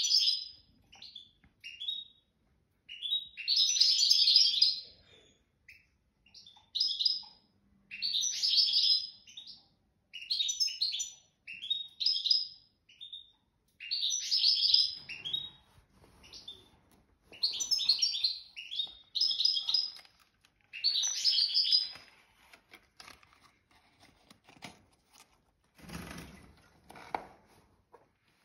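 A small songbird singing in fast twittering phrases, each a second or two long, with short pauses between them. The song stops a few seconds before the end, and there is a brief rustle near the end.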